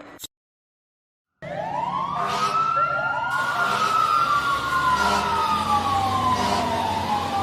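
Wailing sirens: several overlapping tones that sweep up and then slowly fall, over a steady low hum. They start suddenly about a second and a half in, after a brief silence.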